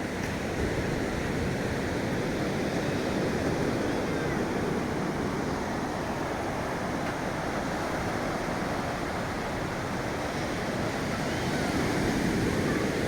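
Ocean surf washing onto a beach, a steady rush of breaking waves that swells twice, with some wind.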